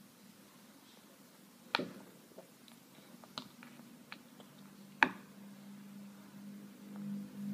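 An orange plastic spoon clicking and scraping against a pink plastic bowl as a toddler feeds himself, with a few sharp clicks, the loudest about five seconds in. A low steady hum comes in over the second half and grows louder near the end.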